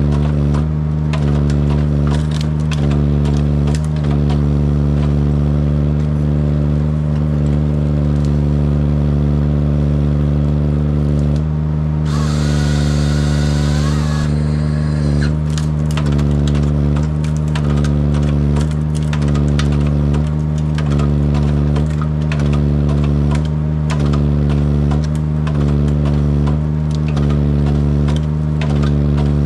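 Forestry machine's diesel engine and hydraulics running steadily at working speed as the crane and Jobo ST35 harvester head work, with scattered cracks and snaps of wood. About twelve seconds in there is a hissing burst with a whine, lasting about two seconds.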